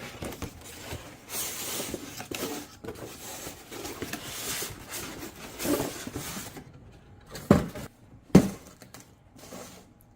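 Hands unpacking a boxed RC plane kit: rustling of packaging and paper with light clinks and knocks, then two sharp knocks about a second apart near the end.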